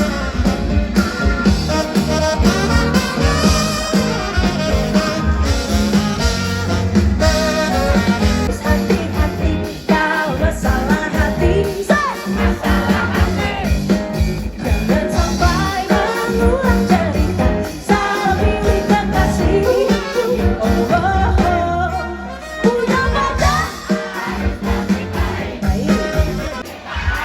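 Live band music played loud through a concert sound system, with singing at times.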